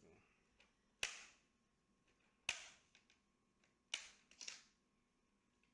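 Plastic retaining clips of a laptop's front screen bezel snapping loose one by one as it is pried off the LCD: four sharp snaps, roughly a second and a half apart, the last two close together.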